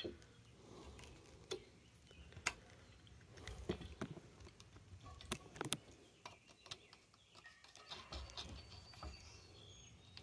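Faint, scattered small clicks and ticks as a snap ring is worked with snap ring pliers, the pliers opening the ring to fit it into a groove, with a few sharper clicks about one and a half, two and a half, three and a half and five and a half seconds in.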